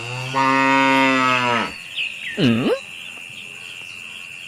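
A cow mooing: one long, low moo that drops in pitch at the end, then about a second later a short call that swoops down and back up. A steady high tone runs underneath.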